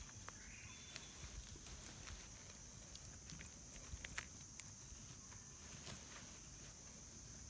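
Faint, scattered snaps and crackles of burning or handled kindling at a campfire, a few irregular clicks a second. A steady high hiss runs underneath.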